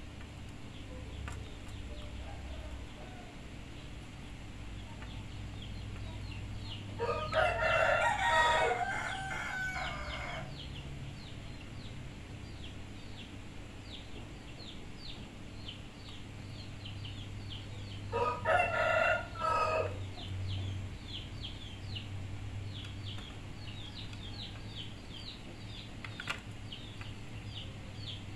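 Rooster crowing twice, about ten seconds apart, the first crow the longer. Between and after the crows comes a long run of quick, high, short chirps, over a steady low hum.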